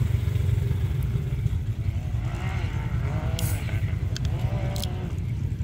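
Off-road vehicle engines running with a steady low rumble; in the middle a rising-and-falling pitched sound joins in, along with a couple of sharp clicks.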